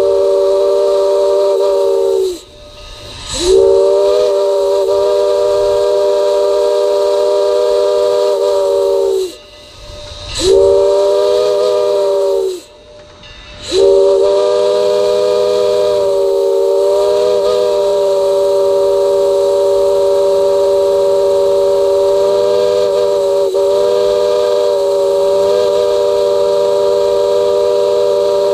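Steam locomotive's chime whistle sounding a chord of several tones in blasts: the end of one long blast, then long, short and a final long blast held for many seconds. The pattern is the long-long-short-long signal a train whistles when approaching a road crossing.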